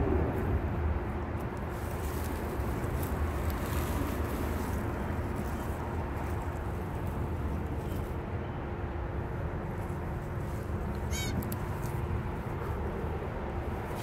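A hand digging through dry leaf litter and soil, the dry leaves rustling and crackling now and then over a steady low rumble. There is one short high chirp about eleven seconds in.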